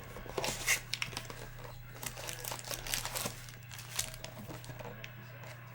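Trading card pack wrappers crinkling and tearing as packs are opened and the cards handled, in irregular crackly bursts, over a steady low electrical hum.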